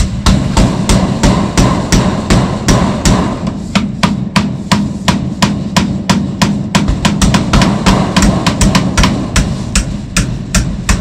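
Rapid hammering on the hut's roof framing, about three to four blows a second, keeping up a steady rhythm.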